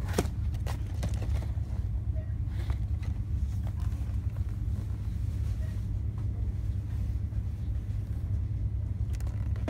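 Steady low rumble, with a few light taps and knocks of cardboard snack boxes being handled, the sharpest just after the start.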